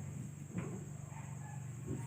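Two small clicks of metal parts being handled, as a tie wire probes the clogged gas passage of an LPG stove's burner valve. Under them runs a steady low hum and a faint high whine.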